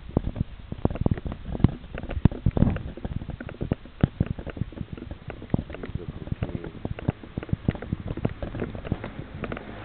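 Handling noise from a handheld camera carried while walking: irregular knocks and rubbing on its microphone, several a second, heaviest in the low end.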